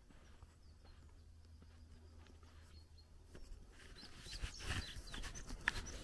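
Small songbirds chirping, sparse at first and becoming louder and busier from about four seconds in, over a low rumble of wind on the microphone. Light footsteps on the road come through underneath.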